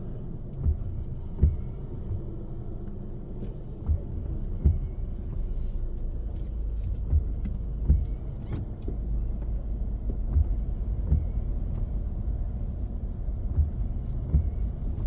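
Low, steady rumble inside a car cabin, with scattered short thumps every second or two.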